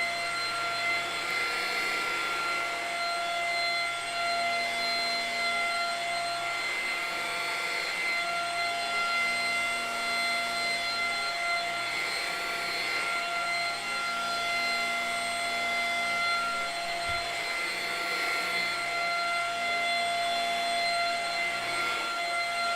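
Vacuum cleaner running steadily: a motor whine held at one pitch over a continuous rush of air, swelling slightly about every five seconds.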